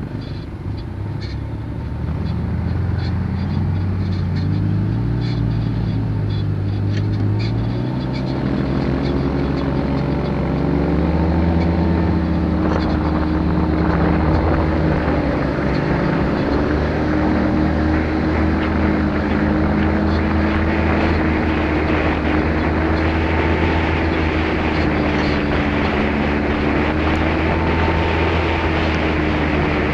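Quad (ATV) engine heard from onboard on a dirt track, its pitch climbing over the first ten seconds or so as it accelerates, then running steadily at speed. Wind and tyre noise run under it throughout.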